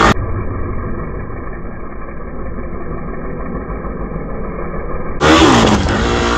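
Hero Xpulse 200's single-cylinder engine as the bike is ridden up and over a dirt hump with its front wheel in the air, heard dull and muffled behind an even rushing noise. About five seconds in the sound becomes clear and close, the engine's pitch rising and falling as it is revved.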